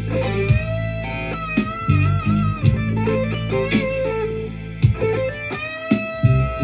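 Cort G300 Pro electric guitar playing a blues lead: picked single notes, some held with a wavering vibrato, over sustained low notes.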